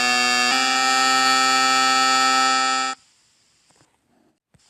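A steady, buzzy horn-like tone held for about three seconds, then cut off sharply.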